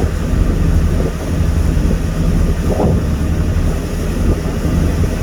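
A ship's engine running with a steady low drone, under an even rushing noise.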